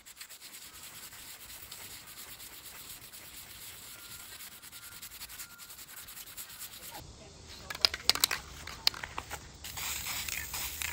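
A small metal hinge being rubbed clean by hand with an abrasive, a faint steady scrubbing. After about seven seconds come a few sharp clicks, then an aerosol can of clear lacquer spraying in a steady hiss near the end.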